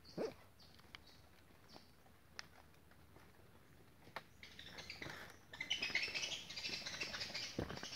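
Birds chirping and twittering in the forest, getting louder and busier in the second half. A sharp knock comes just after the start, with a few light clicks after it.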